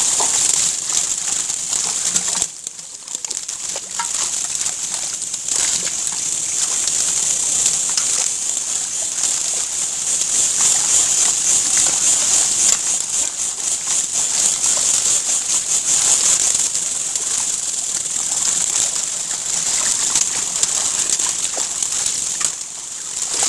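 Many fish thrashing in shallow muddy water, a dense steady crackle of small splashes and slaps. The level dips briefly twice.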